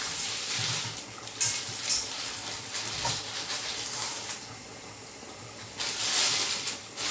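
Plastic bag rustling and crinkling in irregular bursts as a lump of dough is unwrapped from it, with a louder stretch near the end.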